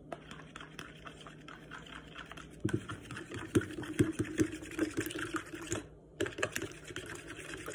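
A fork beating raw eggs in a bowl: a quick run of clicks against the bowl, light at first and louder in the middle, with a short break before it resumes.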